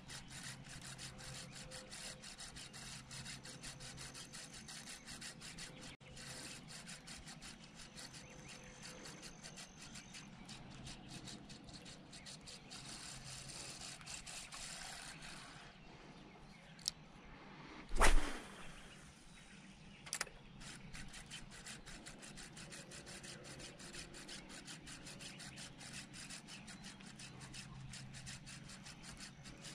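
Spinning reel being cranked, a rapid ticking whir as the lure is retrieved, pausing about sixteen seconds in. A single loud thump comes about eighteen seconds in, after which the cranking resumes.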